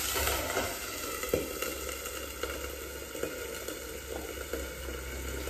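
Wedge clams (arselle) cooking in oil and white wine in a covered frying pan: a steady sizzle with a few light ticks. The clams are steaming open under the lid.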